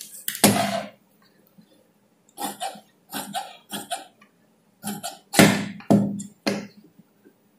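Large tailoring shears cutting through cloth: a run of short snips, a few of them louder and sharper.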